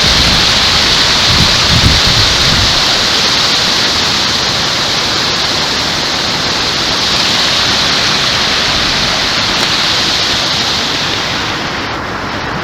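Loud, steady rush of water from a rain-swollen stream or waterfall. A few low thumps come about two seconds in.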